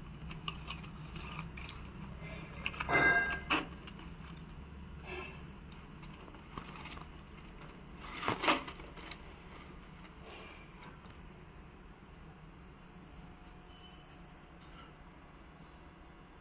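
A steady high-pitched insect trill, like crickets, over a low hum, with brief rustles and knocks about three seconds in and again near the middle as the potted plant and vase are handled.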